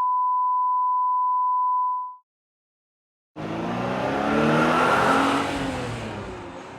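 A steady, high electronic beep that cuts off about two seconds in, then a second of dead silence, then a car engine revving, its pitch rising and falling, loudest in the middle and fading toward the end.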